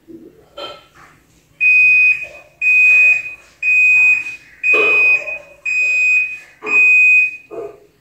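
Haier top-loading washing machine's end-of-cycle signal: six high beeps, about one a second, each held just over half a second, marking the end of its tub-clean cycle.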